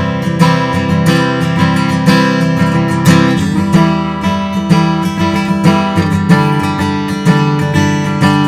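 Gibson Southern Jumbo True Vintage acoustic guitar, a slope-shoulder dreadnought, being played in a demo: strummed chords with picked notes, the strums landing about twice a second.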